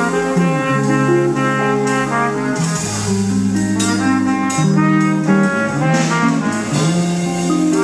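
A live band playing music: several instruments holding notes that change together over a low bass line, with a steady beat of sharp hits.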